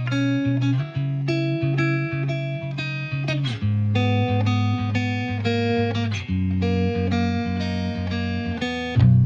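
Background music: plucked guitar notes and chords at an even pace, with the chord changing every few seconds. Just before the end a louder, deeper part comes in.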